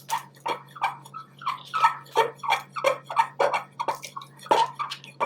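Glue-and-borax slime being stirred vigorously with a knife in a bowl: quick wet squelching strokes, about three a second, as the mixture thickens into slime.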